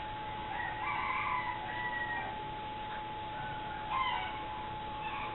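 A cat meowing: a drawn-out call starting about half a second in, then shorter calls near four and five seconds. A steady high hum sits underneath.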